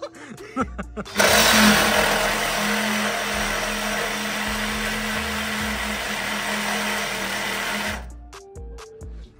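A power cutting tool runs steadily at full speed with a constant whine, cutting through a truck's bump stops. It starts abruptly about a second in and cuts off abruptly near the end.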